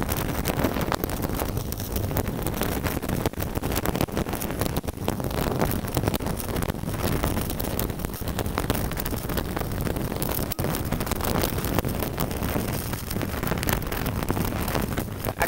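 Stick-welding arc on a 3.2 mm electrode from a Tenya CUT50 inverter set to 120 A, a steady crackling sizzle that dips briefly twice.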